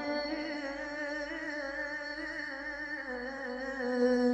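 Male Qur'an reciter holding one long, soft, drawn-out note in melodic tilawah style, with a slight wavering vibrato; it grows a little louder near the end.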